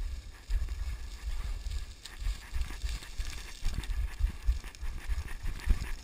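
Boots plunging and sliding through loose scree on a fast downhill run, a rhythmic crunch and rattle of stones with each stride, with wind buffeting the microphone.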